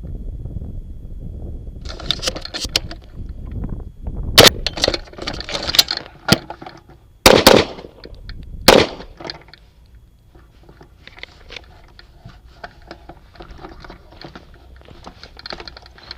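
Loud gunshots during a weapon transition drill: a single shot about four seconds in, a quick pair about three seconds later and one more shot about a second after that, with clattering of gear being handled before and after.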